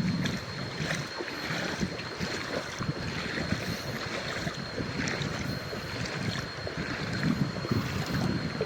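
Water noise with wind buffeting the microphone and scattered small knocks, over a thin, steady high tone.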